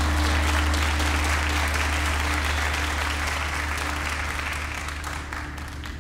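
Crowd applauding, the clapping dying away over a few seconds, with a steady low hum underneath.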